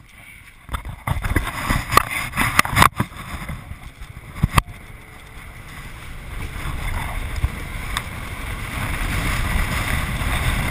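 Water and wind rushing past a towed inflatable tube skimming a lake, with wind on the microphone. Several sharp slaps come in the first few seconds as the tube bounces on the water. Then a steady rush grows louder as the tube swings wide across the wake at speed.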